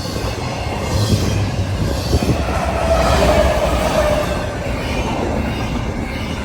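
Freight train rolling past, its wheels rumbling steadily on the rails, with a brief metallic squeal about three seconds in.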